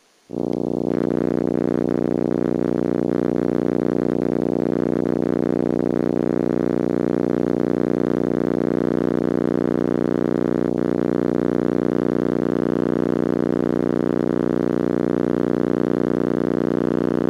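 Steady electrical buzz with many overtones from VHS tape playback frozen on a paused frame. It cuts in abruptly a moment in and holds unchanged, with a slight regular pulsing.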